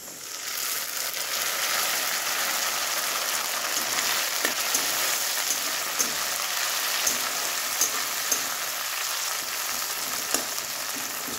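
Chopped tomatoes hitting hot oil and browned onions in a metal wok, setting off a sizzle that starts suddenly and keeps on steadily. A flat metal spatula stirring them clicks and scrapes against the pan now and then.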